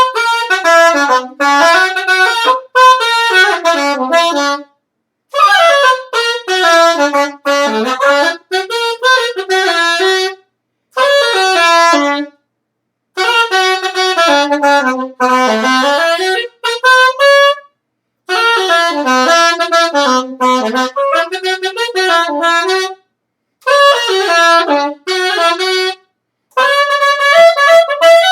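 A horn, a single wind instrument, played solo in quick runs of notes up and down its range. The playing comes in several phrases of a few seconds each, broken by short pauses for breath.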